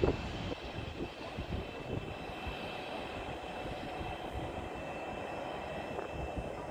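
Distant jet airliner engines running with a steady whine over a broad rushing noise, with a low thump at the very start.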